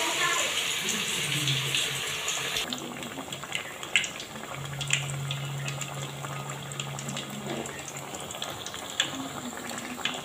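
Marinated chicken pieces deep-frying in hot oil in a kadai. A loud sizzle as a freshly added piece hits the oil settles after about two and a half seconds into a quieter, steady bubbling sizzle with scattered pops.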